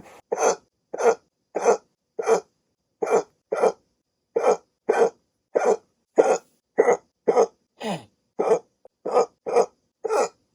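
A person's hiccups, about eighteen short sharp gulps, edited back to back at nearly two a second with silent gaps between.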